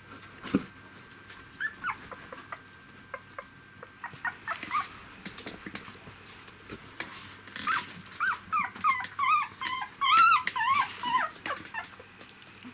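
Three-week-old poodle puppies whimpering and squeaking: short high cries that rise and fall in pitch, scattered at first, then a dense run of cries from about eight seconds in. A knock about half a second in and a few light clicks.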